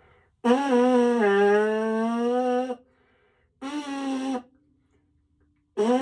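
Trombone mouthpiece buzzed on its own, without the horn. There is a long held note that drops slightly in pitch about a second in, then a short note, then another starting near the end.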